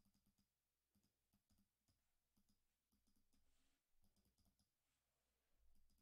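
Near silence: faint room tone with scattered, irregular faint clicks.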